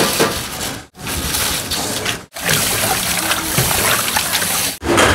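Thin wheat noodles (somyeon) dropped into a pot of boiling water, then rinsed and swished by hand in water in a steel basin: a steady rush of splashing, sloshing water that breaks off abruptly twice between short clips.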